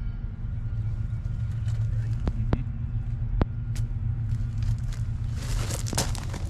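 An engine running steadily at a low idle, with scattered clicks and knocks over it and a burst of hissing noise about five and a half seconds in.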